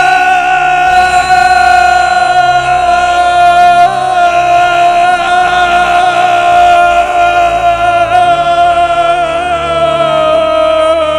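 A single voice holds one long, high, drawn-out note over backing music, with no break for breath. The pitch sinks slowly, wavers in the middle, and slides down as it gives out near the end.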